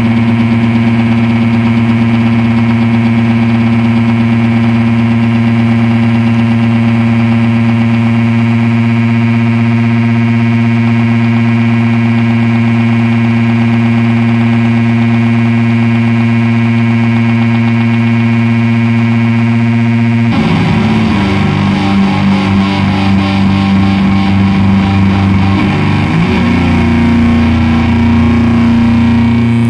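Electric guitar tuned down to A, played through a Sonic Doom fuzz pedal into a 70s Matamp GT120 and a Sunn power amp driving stacked 4x12, 2x15 and 6x12 cabinets, recorded on a phone. It holds one loud, heavily fuzzed low note that sustains unchanged for about twenty seconds without breaking into feedback. Near the end it breaks into a choppy run of changing notes, then settles back into a held note.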